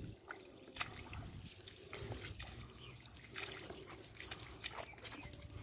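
Bare feet wading through shallow muddy water, making irregular small splashes.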